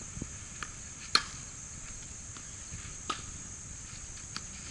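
Steady high-pitched insect chorus, with a few sharp knocks of a tennis ball being hit, the loudest about a second in and another near three seconds in.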